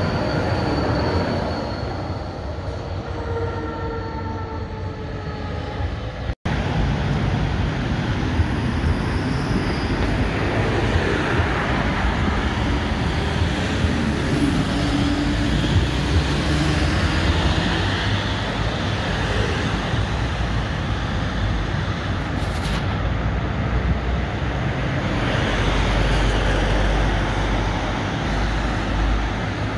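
Articulated low-floor electric tram passing close, its drive giving steady whining tones over wheel-on-rail noise. After an abrupt cut about six seconds in, another tram rolls past amid street traffic, with a deep rumble from a heavy truck near the end.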